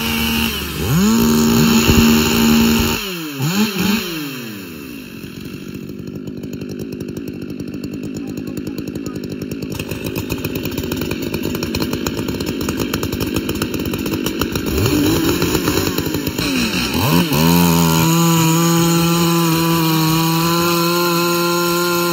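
Large two-stroke Stihl chainsaws revving hard and falling back, then a long spell of fast, even idling. Near the end one saw revs up and holds a steady full-throttle note as it cuts into the log.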